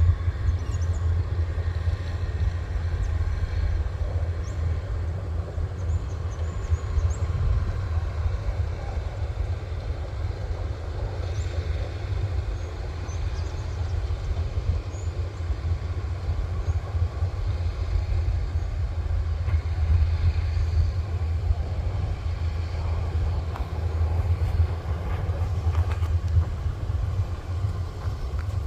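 Kubota rice combine harvester running steadily, a constant low engine rumble under a broad mechanical hum.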